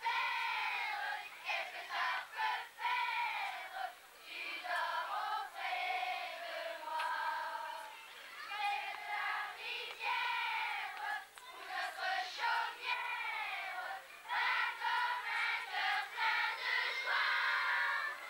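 A large group of children singing together, their high voices holding and gliding through sung notes with short breaks between phrases.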